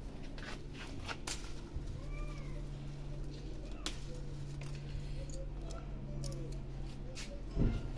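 A cat meows once about two seconds in, a short rising-and-falling call, and more faintly again later. Around it are leaf rustling and a few sharp snaps as small chili peppers are picked off the plants, with a thump near the end.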